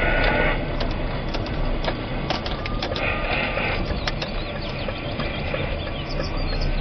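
Car driving along a street, heard from inside: a steady rumble of engine and tyre noise with many short clicking rattles throughout.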